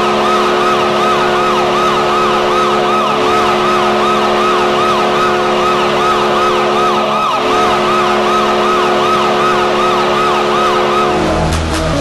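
Hockey goal horn blaring as one long held chord, with a siren wailing up and down about three times a second layered on top. Near the end the horn and siren cut off and electronic music with a beat comes in.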